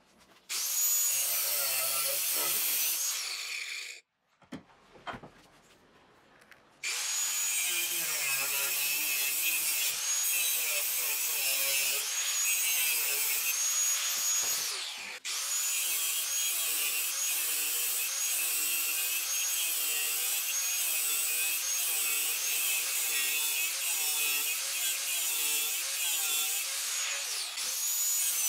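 A saw cutting through a 5160 steel bar to rough out a knife blank. A short run of cutting comes first, then a pause with a few knocks, then a long steady run of cutting from about seven seconds in, with a brief break about halfway.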